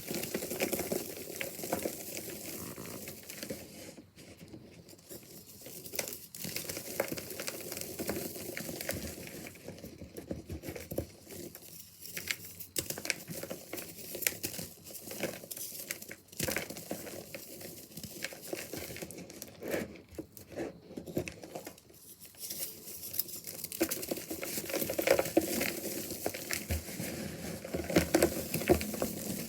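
Purple reformed gym chalk bars being crushed, crunching and crumbling into powder: a dense crackling that comes in uneven bursts with short lulls.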